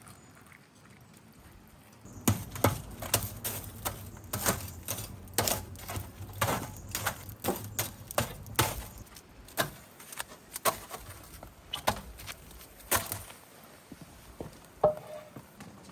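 A run of sharp, irregular knocks and clicks, about one or two a second, starting about two seconds in.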